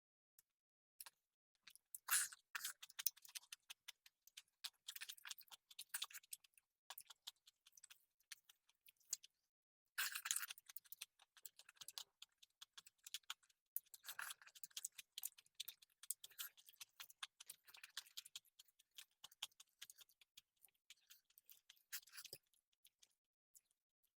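Close-miked mukbang eating sounds: wet chewing and crunching of rice, salad and green bean and potato curry, with small sharp clicks. The sounds come in clusters, loudest about two seconds in and again about ten seconds in.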